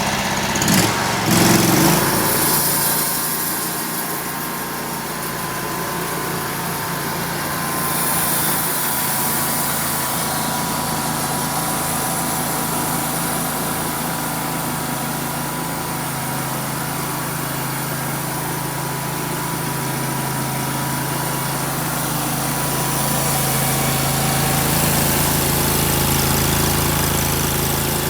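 Small engine of a homemade sawmill running steadily, with a brief loud clatter in the first two seconds.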